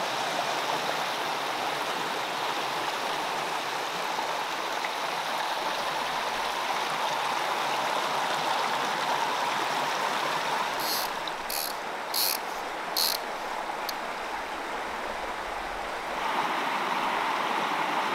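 Mountain stream rushing and splashing over rocks, a steady noise of running water. About two-thirds of the way through there are about five short sharp clicks, and the rushing gets a little louder near the end.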